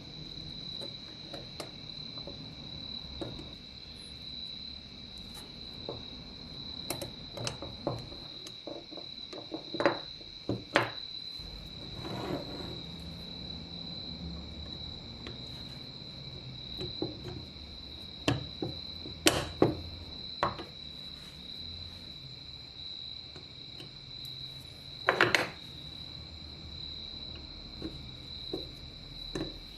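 A steady high cricket trill, with scattered sharp clicks and knocks of small metal parts and tools being handled, in small clusters.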